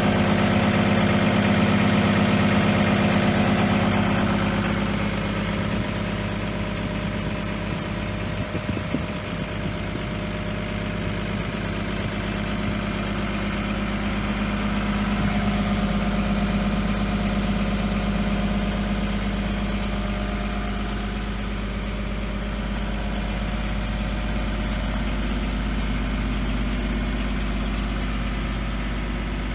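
Hyundai Robex 235 LCR-9 tracked excavator's diesel engine idling steadily. It is a little louder for the first few seconds, then slightly fainter.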